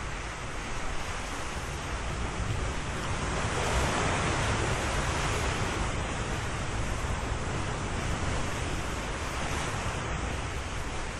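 A steady rush of wind and water noise, swelling about four seconds in and easing again.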